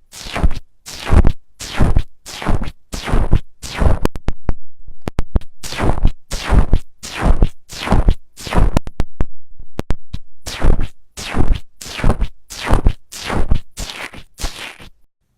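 Slime being squeezed and pressed by hand in a steady rhythm, about one squish every half second, with small sharp clicks or pops between some of the squishes.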